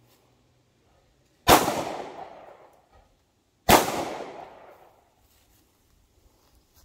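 Two shots from a 9mm Canik pistol, about two seconds apart, each trailing off over about a second.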